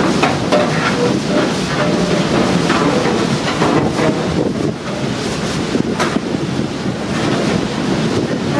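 Strong gale wind buffeting the microphone in a continuous loud rush. A few short knocks from metal-framed deck loungers being handled cut through it.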